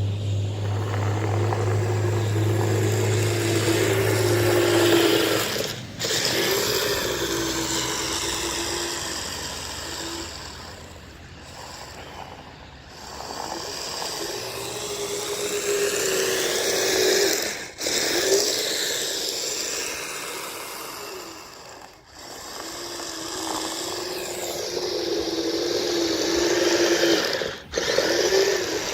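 Electric motors and drivetrain of a Kyosho Blizzard SR radio-controlled snow tractor whining as it drives and plows snow. The pitch rises and falls with the throttle, with brief breaks every few seconds.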